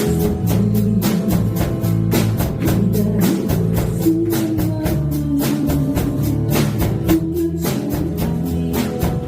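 Live band playing an instrumental passage of a trot song: a drum kit keeps a steady beat over bass, guitar and keyboard, with a held melody line in the middle.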